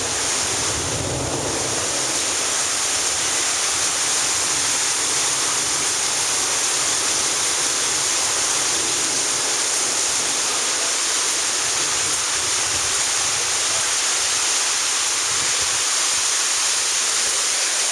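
Heavy rain pouring down as a loud, steady hiss, with some low wind rumble on the microphone near the start.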